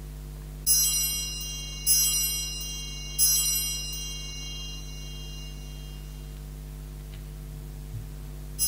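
Altar bell rung three times, about a second apart, at the elevation of the consecrated host, each ring a bright high-pitched chime fading away, then rung once more right at the end as the host is set down.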